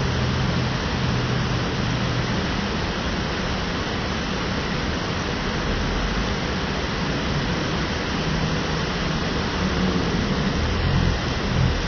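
Waterfall: a loud, steady rush of falling water, with some low rumbling coming and going, strongest near the end.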